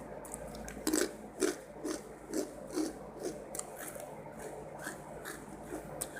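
Close-miked chewing of a mouthful of spicy fried rice with stink beans (nasi goreng pete), at about two chews a second with small wet mouth clicks, getting softer about halfway through.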